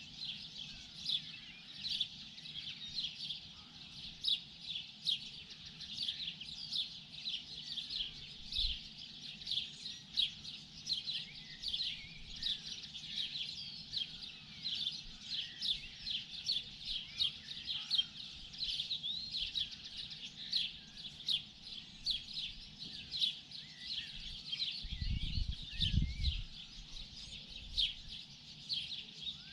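Many small birds chirping and singing at once in a dense, continuous morning chorus of rapid high notes, over a faint low hum. A short low rumble passes near the end.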